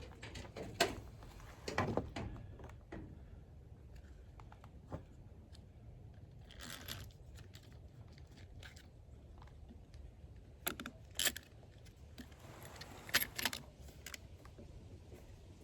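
Scattered clicks and knocks of small parts and tools handled on a backpack blower during a fuel-line repair, with a brief rubbing noise near the middle.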